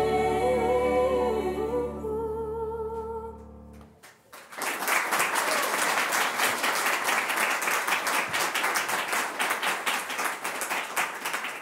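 A gospel choir and solo singer hold the song's final chord, the solo voice wavering above, until it fades out about four seconds in; then an audience applauds steadily.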